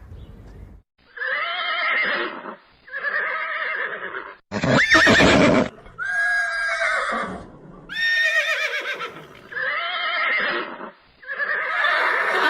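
Horse whinnying over and over: about seven neighs of roughly a second each, coming every second and a half or so, with a wavering, quavering pitch.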